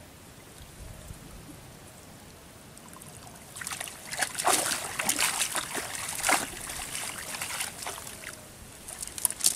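Water splashing and trickling off a cast net as it is hauled up out of a pond, coming as a run of uneven splashes that starts about a third of the way in and returns near the end.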